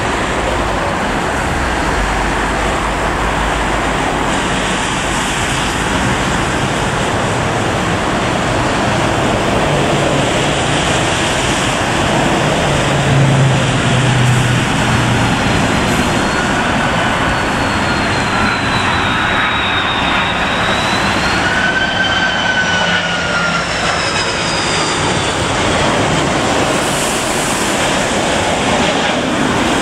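Airbus A330-200 airliner on final approach, passing close by: a steady jet engine rush that is loudest about halfway through. Thin engine whines bend in pitch as it goes past.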